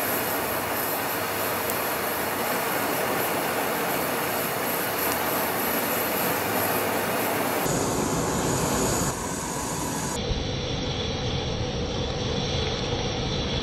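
Coal forge fire burning with a steady rush of air while a steel blade heats in the coals. About seven and a half seconds in the sound turns to a deeper, heavier rumble as the hot steel goes into a container of quench oil that bursts into flame.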